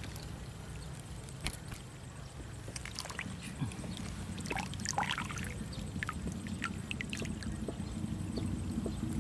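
Small clicks, drips and splashes of a freshly caught tilapia being held and unhooked over pond water, over a steady low rumble.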